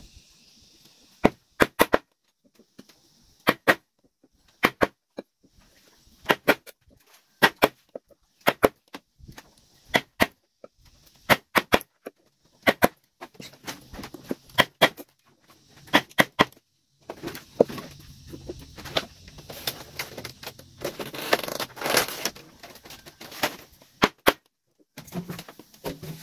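Sharp knocks of a tool striking a wooden pole, often in quick pairs, about one a second. A stretch of denser scraping and rustling comes in the later part.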